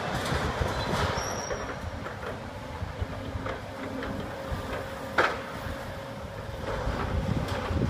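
Hydraulic excavator running as it tears into a steel-clad building: a steady low engine rumble with scattered metal clanks and knocks, and one sharp bang about five seconds in.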